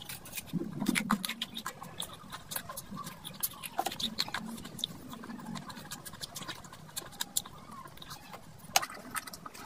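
Close-miked eating sounds: wet chewing, lip smacks and sticky clicks as curry and rice are eaten by hand, with a brief low hum about a second in.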